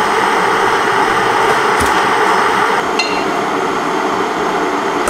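A steady rushing noise, with a knock a little under two seconds in and light glassy clinks about three seconds in.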